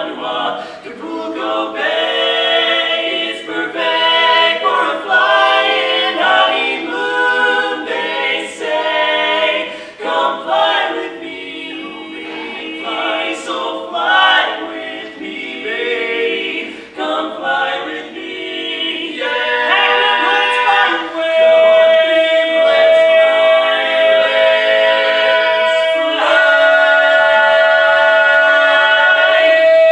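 Male vocal quartet singing a cappella in harmony, with no instruments. In the second half the voices settle onto a long held note that swells into a loud, sustained chord near the end.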